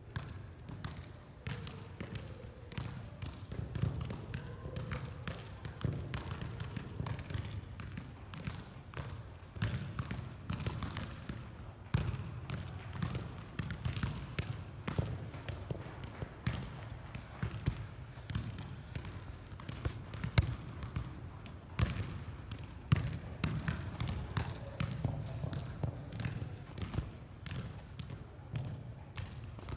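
Soccer ball being juggled: a run of irregular dull thumps as foot, thigh and head touches keep the regular-size ball in the air.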